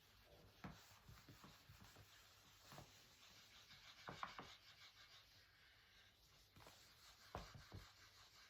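Faint writing: a pen tip scratching in short strokes across a smooth surface, with small taps between strokes.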